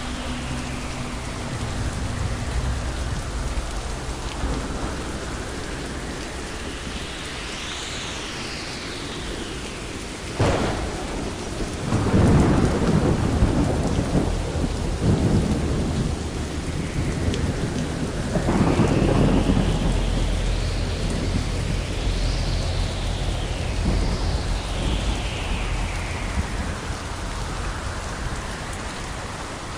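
Thunderstorm: steady rain with a sharp crack of thunder about ten seconds in, followed by a long low rumble of rolling thunder and a second roll a few seconds later.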